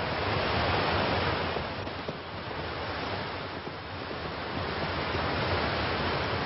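Sea surf breaking and washing up a sandy beach, a steady rush of waves that swells about a second in and again near the end.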